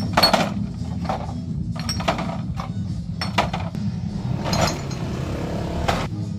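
Empty glass soda bottles clinking against each other and knocking into a plastic bottle crate as they are set in and handled: a dozen or so sharp, irregular clinks over a steady low hum.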